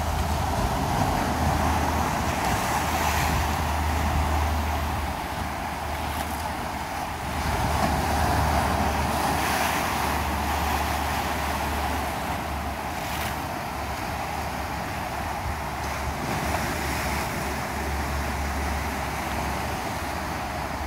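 Sea waves breaking and washing in over the shore in a steady surf noise that swells and eases, with wind buffeting the microphone as a low rumble.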